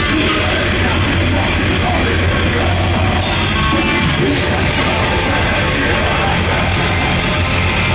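Heavy metal band playing live at full volume: distorted guitars, bass and drums in a dense, continuous wall of sound.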